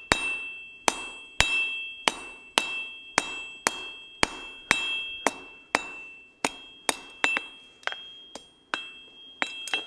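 Hand hammer striking hot steel laid over the edge of a 66 lb cast steel anvil, about two blows a second. Each blow sets the anvil ringing with a steady high ring that carries on between strikes. The anvil is not bolted down, so it rings quite loud.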